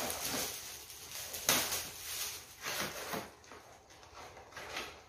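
Crinkling and rustling of shiny foil gift wrap being pulled off a present, uneven with a few sharper crackles. Near the end it turns to quieter handling of the cardboard gift box.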